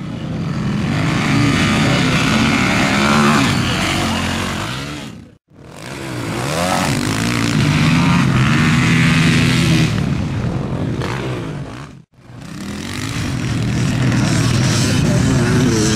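Motocross dirt bike engines revving, their pitch rising and falling as the riders work the throttle through the track. The sound cuts out briefly twice, about five and twelve seconds in.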